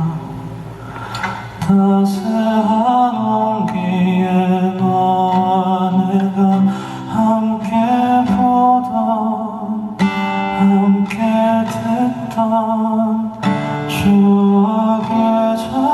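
Live band music: a male voice singing a slow song over acoustic guitar, with keyboard, bass and drums.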